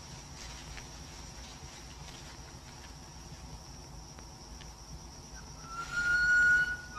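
Film soundtrack with a steady hiss and a thin, high, insect-like drone. Near the end, a loud, held, whistle-like note with overtones comes in and stays at one pitch.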